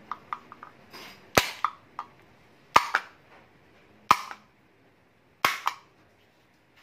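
Hammer knocking on an HID headlight ballast: four sharp, loud strikes about a second and a third apart, with lighter taps in between. The ballast has just been heated, and the blows are meant to jolt its internal parts as a trick to revive the dead ballast.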